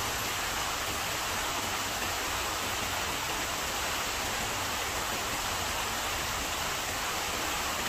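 Steady rush of running water: an even, unbroken hiss with no separate events.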